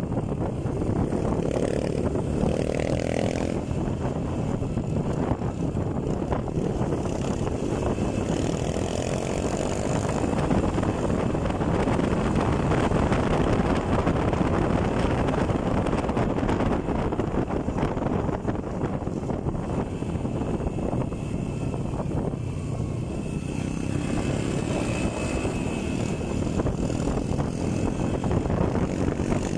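Motorcycle engine running while riding along, its pitch rising and falling in places with the throttle, under a steady rush of wind and road noise on the microphone.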